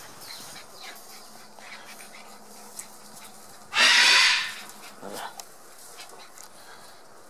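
Six-week-old Border Collie puppy giving one short, loud bark about four seconds in, followed about a second later by a shorter, fainter cry.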